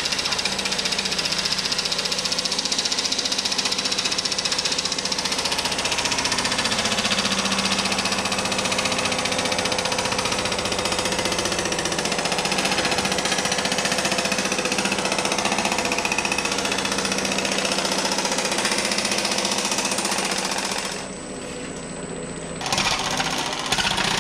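Pullmax reciprocating sheet-metal shaping machine running, its upper die hammering the panel in rapid strokes against a custom bottom die. The hammering drops off briefly near the end, then starts again.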